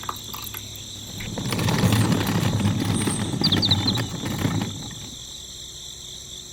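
Steady high-pitched insect drone, with a low rumbling noise that swells up about a second in and fades out again a few seconds later, and a few short chirps in the middle.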